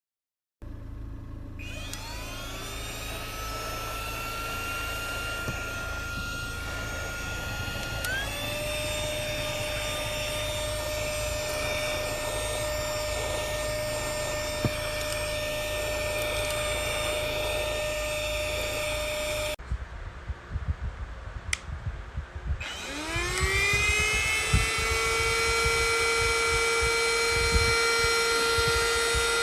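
Small handheld cordless vacuum cleaner motor switched on and spinning up to a steady high whine. About eight seconds in it steps up in pitch, and about two-thirds through it cuts out for a few seconds, then spins up again.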